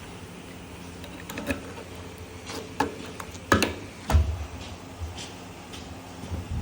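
Kawasaki Balius 250 cc inline-four engine idling with a steady low hum, which the owner presents as running smoothly with no abnormal noise. Scattered sharp clicks sound over it, with a low thump about four seconds in.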